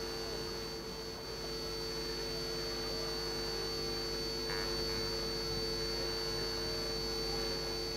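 Steady electrical hum made of several fixed tones, a low one, a mid one and a thin high whine, holding level with no other distinct sound.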